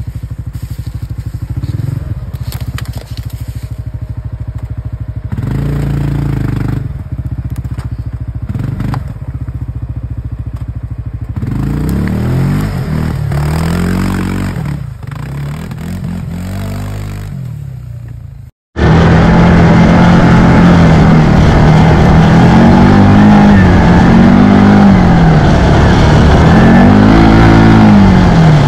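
Quad bike (ATV) engine revving up and down as it works through a muddy, leaf-covered rut, tyres churning. After a sudden break about two-thirds of the way in, the engine is much louder and close by, its pitch rising and falling with the throttle.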